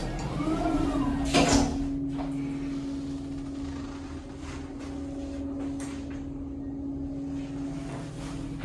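Lift doors sliding shut with a thud about a second and a half in, followed by the steady hum of the lift car as it starts to travel.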